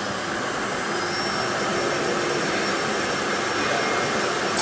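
Stainless-steel drum fruit press running, a steady rushing, hiss-like machine noise, just after its pressing program was started.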